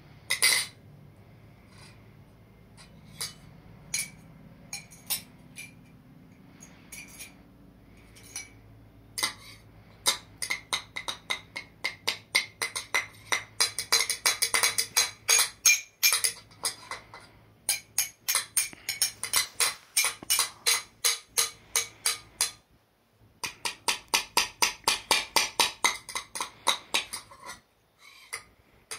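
A metal spoon stirring and clinking against the bangles in a ceramic bowl. A few scattered clinks come first, then fast runs of about four clinks a second, broken by a short pause partway through.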